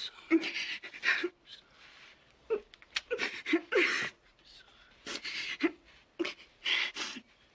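A woman's ragged, uneven panting breaths, many ending in a short whimpering cry: breathing in distress.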